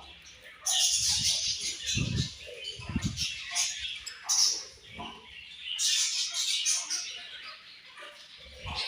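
A group of budgerigars chirping and chattering in loud bursts, with a few low thumps about two and three seconds in.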